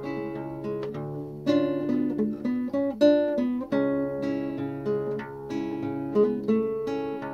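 Classical acoustic guitar played solo: a string of plucked melody notes and chords ringing over held bass notes.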